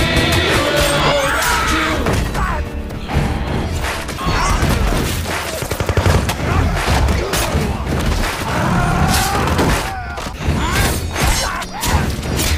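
Action-film fight soundtrack: music mixed with a dense run of hits, crashes and blasts.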